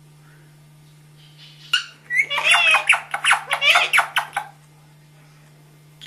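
Indian ringneck parakeet chattering: a quick run of warbling, squawky calls for about two and a half seconds, starting just after a sharp click about two seconds in. A low steady hum runs underneath.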